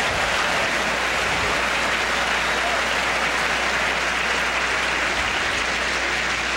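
Tennis crowd applauding a won point, a steady, even clapping.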